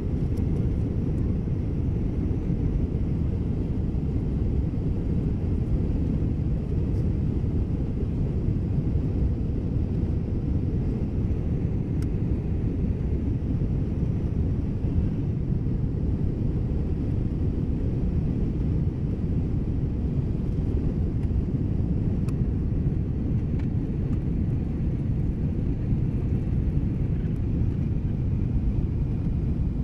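Jet airliner cabin noise during descent, heard from a window seat: a steady low rumble of engines and airflow that does not change.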